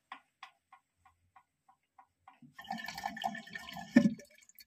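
Water rushing into a concealed toilet cistern through its ballcock fill valve, starting about two and a half seconds in, with one sharp knock near the end. Before that, a run of light ticks, about three a second.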